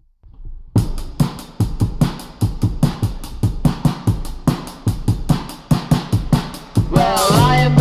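Music: a track opens on a fast, steady drum beat alone, and bass and guitar come in near the end.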